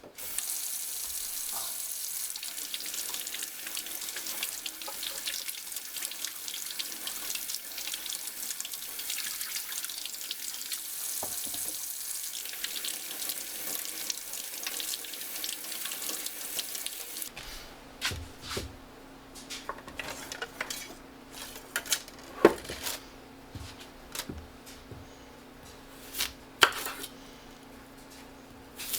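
Water running steadily from a kitchen tap into a sink, stopping abruptly about seventeen seconds in. Scattered sharp knocks of a knife on a cutting board follow over a faint low hum.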